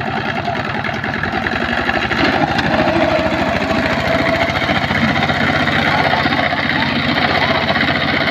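Two-wheel power tiller's single-cylinder diesel engine running under load with a rapid, steady knocking beat as it pulls a trolley loaded with harvested rice through deep paddy mud; it gets louder about two seconds in.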